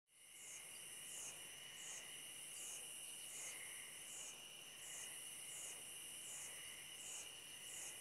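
Crickets and other night insects chirping faintly: a high pulsing chirp repeating about every three-quarters of a second over a steady high trill.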